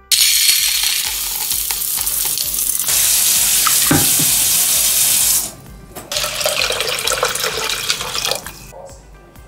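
Water running into a rice cooker's inner pot while rice is washed by hand in it. The flow stops briefly about halfway through, then Brita-filtered water pours into the pot for cooking.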